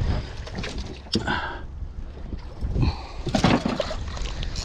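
Irregular knocks and handling bumps aboard a small outrigger boat, over a steady low rush of wind and water.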